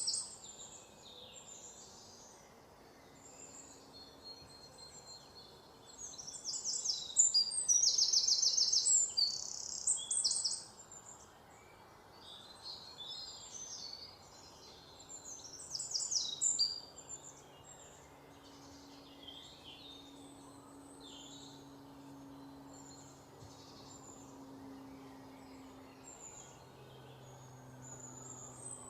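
Forest ambience of several songbirds singing and calling. A loud, rapid trilled song comes in about six seconds in and runs for about four seconds, with another loud burst of song around the middle, over a faint low steady hum.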